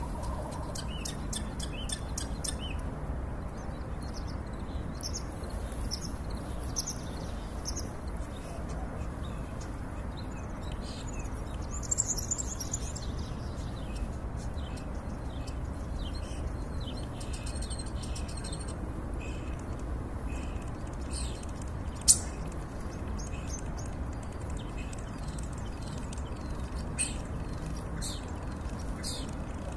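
Starling singing: a long, varied run of short clicks, rattles and brief whistled notes, with one sharp loud click about two-thirds of the way through, over a steady low background noise.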